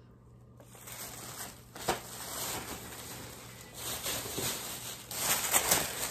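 Thin plastic shopping bag rustling and crinkling as groceries are dug out of it, starting about a second in and getting louder with sharp crackles near the end.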